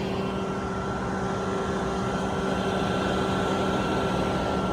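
Steady engine drone of a crane truck running, a constant hum with no change in pitch.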